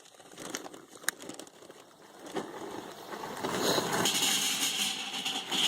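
A charcoal chimney starter being lit: a couple of sharp clicks, then a rushing, crackling noise that builds from about three and a half seconds in as the paper under the charcoal catches fire.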